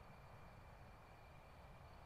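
Near silence: faint steady room hiss with a faint high steady tone, and no handling sounds.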